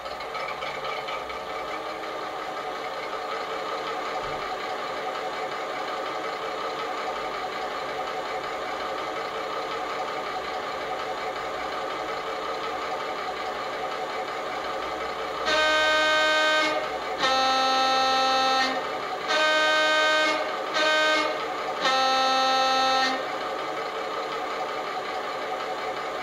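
DCC sound decoder recording of a British Rail Class 29 diesel locomotive, played through the model's small onboard speaker: the engine idles steadily. About halfway through, the two-tone horn sounds in five separate blasts on alternating pitches, the fourth one short.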